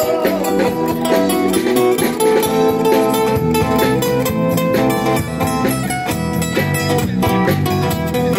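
Live street rock band playing an instrumental passage on electric guitar with drums, with no singing. The low end fills out about three seconds in.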